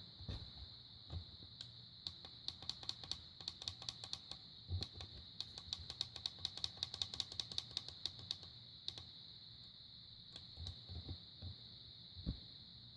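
Small plastic buttons on a LEGO Batgirl minifigure alarm clock clicking rapidly, several presses a second for about seven seconds, as its time is set back an hour. A few soft handling knocks come before and after, over a faint steady high whine.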